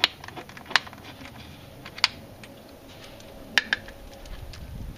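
Hand ratchet and socket clicking and clinking while tightening valve cover bolts. A few scattered sharp metallic clicks, with two close together about three and a half seconds in.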